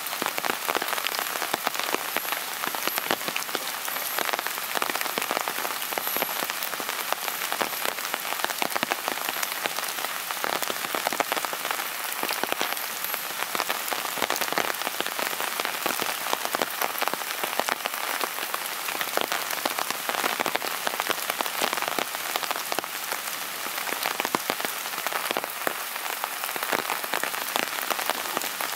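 Steady rain falling, with many individual drops hitting close by.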